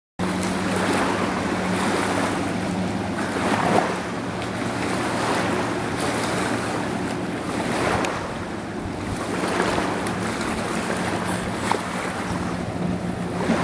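Wind on the microphone over lake water, with a motorboat engine humming steadily underneath.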